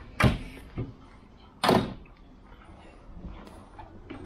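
Louvred teak cabinet door on a boat's wet bar being shut: a sharp knock about a quarter second in, a lighter one shortly after, and a longer knock near two seconds in, with another loud knock at the very end.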